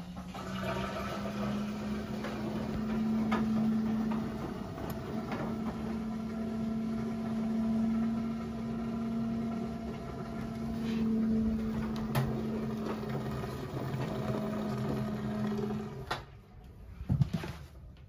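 Front-loading washing machine on its rinse cycle: a steady motor hum as the drum turns the wet laundry, swelling and easing. The hum stops about two seconds before the end, and a short knock follows.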